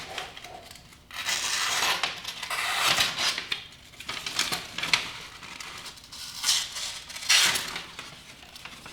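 A freshly sharpened knife being handled and tested for sharpness: a series of irregular rasping strokes with a few light metallic clicks.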